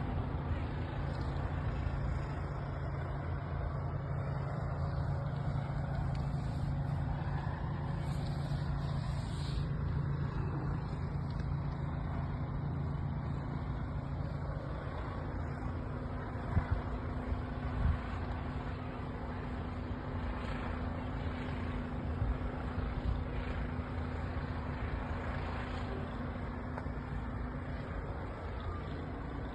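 Steady low rumble with a humming tone, like a vehicle engine running, with a few brief knocks a little past halfway.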